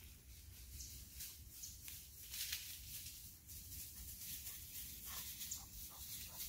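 Faint rustling in brush and dry leaves, with scattered soft crackles.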